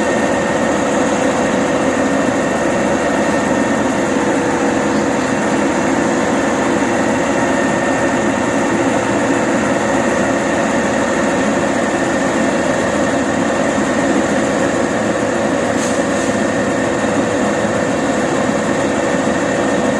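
Peterbilt garbage truck's diesel engine running steadily, with a constant whine on top.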